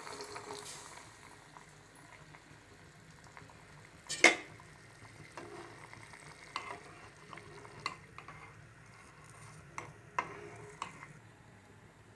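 Water poured from a clay pot into an aluminium pot of boiling rice, the extra portion of water added so the rice cooks soft, trailing off within the first second or so. Then a metal spoon stirs the bubbling rice, clinking against the pot's rim, loudest about four seconds in, with smaller clinks every second or two after.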